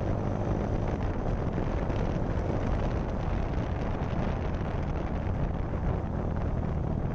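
Single-cylinder engine of a TVS Apache RTR 160 4V motorcycle running under way, the bike picking up speed and then easing off, with wind rushing over the handlebar microphone.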